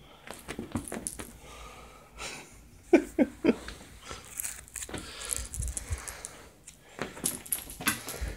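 Handling rustle and soft knocks, with three short pitched vocal sounds in quick succession about three seconds in.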